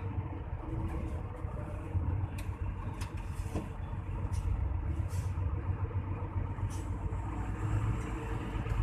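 Hino AK8 bus on the move: a steady low engine and road rumble with a few short, light clicks and rattles.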